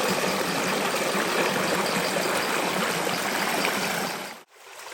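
Forest stream water running, a steady rush that cuts off suddenly near the end.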